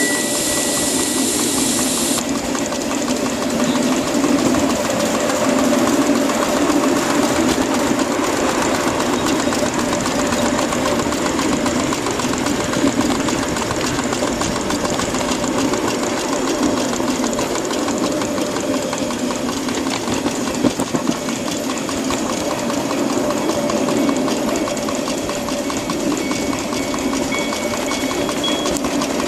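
A 7.5-inch-gauge 2-6-0 live steam locomotive running: a steady, fast mechanical beat with the rumble of the train on the rails. A high hiss stops about two seconds in.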